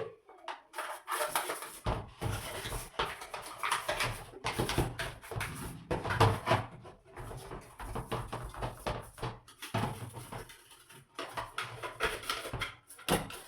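Scrubbing a washing machine's soap dispenser clean of sticky, caked powder detergent: quick, irregular scrubbing strokes throughout.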